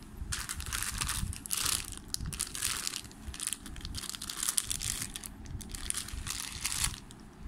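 Thin clear plastic bag wrapped around a bicycle chain, crinkling in several bouts as hands handle and unwrap it.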